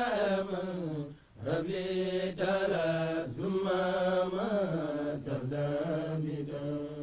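Men's voices chanting an Arabic devotional poem in long, drawn-out held notes that bend slightly in pitch, with a brief break for breath about a second in.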